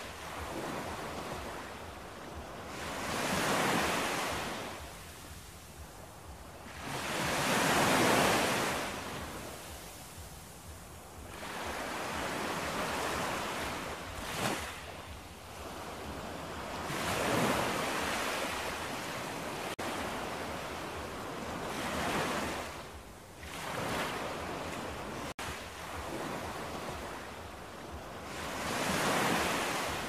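Sea waves breaking and washing up the shore, the surf swelling and fading in slow surges about every four to five seconds.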